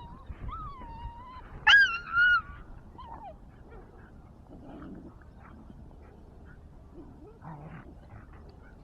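A dog whining in a wavering tone, then giving two loud, high yelps and a short falling whine during rough play, followed by faint scuffling.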